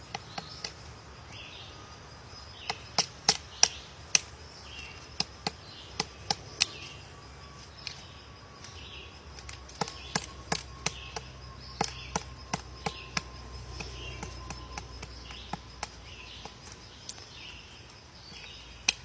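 Woodpecker pecking at wood: sharp single knocks, irregularly spaced and often in short clusters of two to four, not a continuous drumming roll. Faint repeated chirps and a thin steady high tone run underneath.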